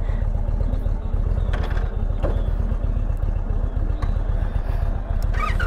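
Indian Challenger's 1768 cc liquid-cooled V-twin idling at a standstill, a steady low-pitched pulsing idle that is not that loud.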